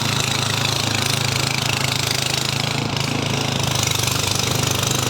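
A small engine running steadily at an even speed with a fast, rapid chugging beat.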